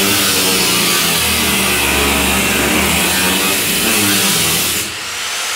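A cutoff wheel grinding through rusty sheet-metal cowl, a steady high-pitched hiss over the tool's motor hum. It eases off for a moment about five seconds in, then bites again.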